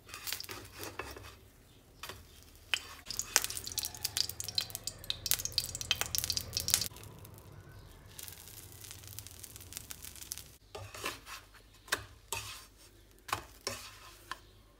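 Plastic spatula scraping and tapping against a non-stick frying pan and a ceramic plate as protein pancakes are lifted and turned, over a light sizzle of batter frying in oil. The clicks and scrapes come thick and fast in the first half, then thin out to a few separate taps.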